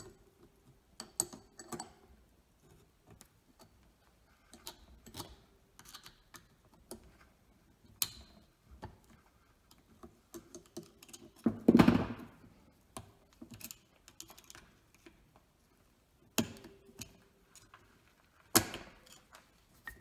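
Snap ring pliers working a steel snap ring off a John Deere 60 PTO clutch pack: scattered small metallic clicks and taps, with a louder rubbing scrape lasting about a second around twelve seconds in and a few sharper clicks near the end.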